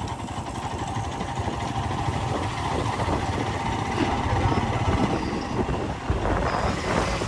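Royal Enfield Himalayan 411's single-cylinder engine running steadily as the motorcycle rides along a road.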